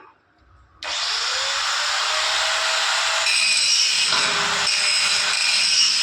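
Power tool, most likely an angle grinder, switched on about a second in and spinning up, then grinding steadily on metal with a loud, hissing high-pitched noise.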